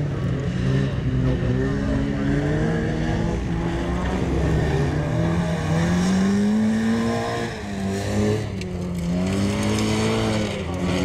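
Folkrace cars racing on a gravel track, their engines revving hard, the pitch climbing and dropping several times as they accelerate and lift off.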